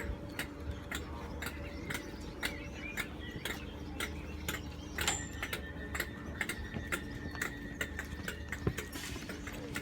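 Merseyrail electric train running, its wheels clicking steadily over the rail joints about three times a second over a low steady hum, with a faint steady whine joining about halfway through.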